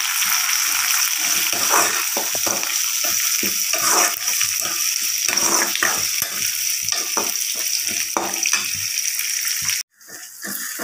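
Onions, curry leaves and fresh tomato pieces sizzling in hot oil in a metal kadai, stirred with a metal spoon that scrapes and knocks against the pan. The sound cuts off abruptly near the end, then comes back quieter.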